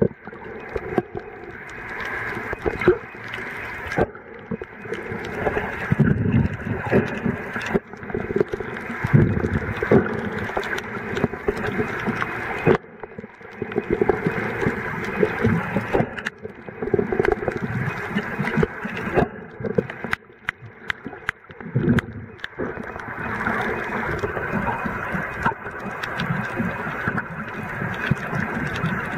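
Muffled underwater sound from a camera held just under the surface while snorkeling: water rushing and sloshing that swells and fades every few seconds, with scattered clicks and crackles.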